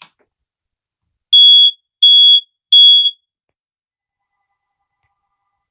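Smoke alarm being tested: three loud, high-pitched beeps in quick succession, the temporal-three evacuation pattern, then it stops.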